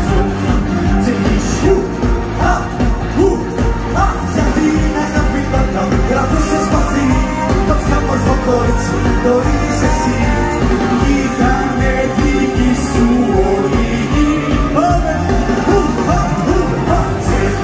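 Live band music with a singer, over a steady beat.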